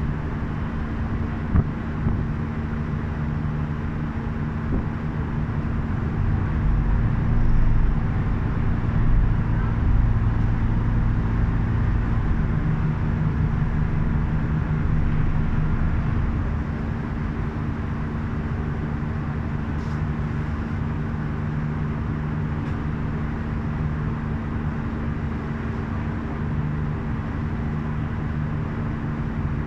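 Strong wind rumbling on the microphone, swelling in a gust from about six seconds in, over a steady low hum. A brief knock comes near the start.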